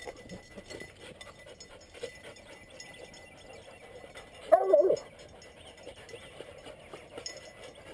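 Young coonhounds barking treed at a raccoon raised up a tree: one loud bark about halfway through, with only faint dog sounds and movement around it.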